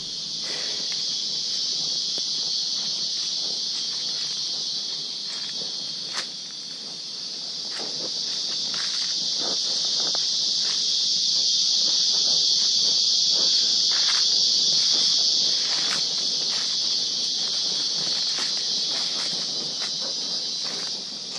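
Steady, high-pitched drone of a forest insect chorus, growing louder around the middle and easing off again near the end, with footsteps on leaf litter underneath.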